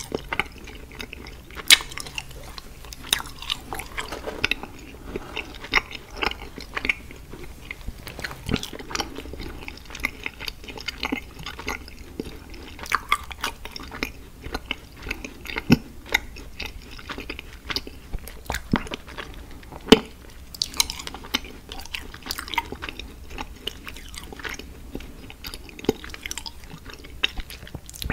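Candy being chewed and bitten close to the microphone, with many irregular sharp clicks and crunches.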